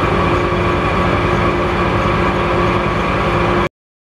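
Metal lathe running with the chuck spinning while a boring insert takes a light cut inside a thin-walled part, a steady machine hum of several tones over an even low pulse. The sound cuts off suddenly about three and a half seconds in.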